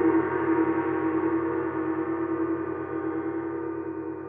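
A gong ringing on after being struck, its many overtones held and slowly fading, with a fast regular throb in the low tones.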